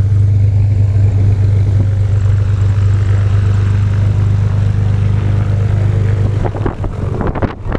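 Single-engine light plane's piston engine and propeller idling with a steady low hum. Near the end, gusty wind buffeting on the microphone takes over.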